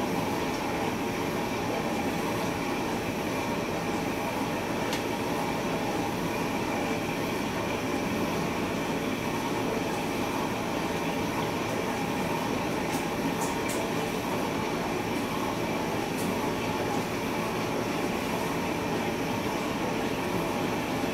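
Steady fan-like hum and hiss with a few faint steady tones, the sound of an air conditioner or extractor fan running, with a few faint clicks.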